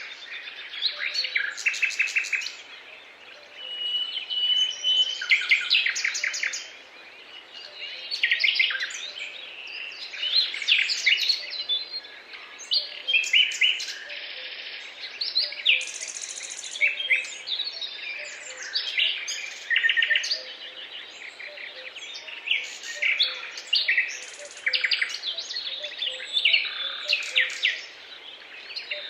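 Several songbirds singing and calling at once: overlapping chirps, whistles and rapid trills, with one or another bird always going.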